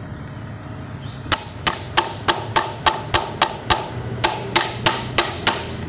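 Hammer tapping on a tool fitted to a motorcycle clutch nut, about fourteen sharp metallic strikes at roughly three a second with a short pause midway, to break the nut loose.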